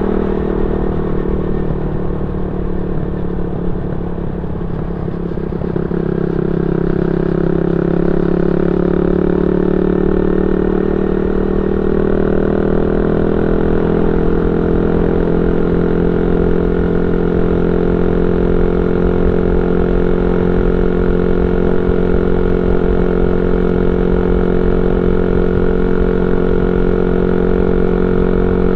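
Yamaha Y15ZR's 150 cc single-cylinder four-stroke engine running through an aftermarket YYPANG SD3 exhaust while riding. The note eases off a few seconds in, then picks up again and holds steady at cruising speed.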